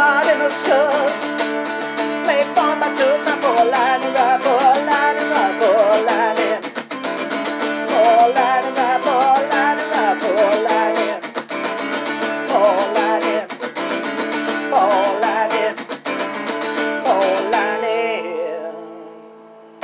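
A man sings while strumming an acoustic guitar with a capo. Near the end the strumming stops and a last chord rings out and fades.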